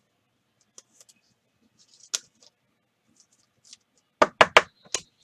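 Trading cards being handled: light rustles and scattered small clicks, then a quick run of four sharp snaps about four seconds in.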